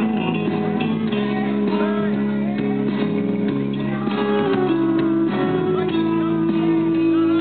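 Music with guitar, holding long steady notes, with voices wavering over it.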